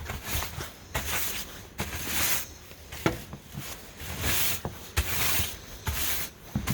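Footsteps crunching through deep fresh snow at a steady walking pace, about one step every two-thirds of a second, with a couple of sharper clicks in between.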